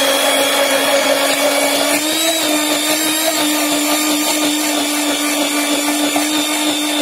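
Electric immersion hand blender running steadily while beating raw eggs in a plastic jug. Its motor pitch rises slightly about two seconds in.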